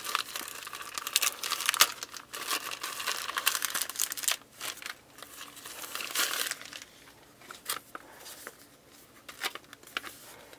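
Clear plastic bag crinkling as it is handled and the instruction booklet is drawn out of it: dense crackling for about the first seven seconds, then only a few scattered crackles.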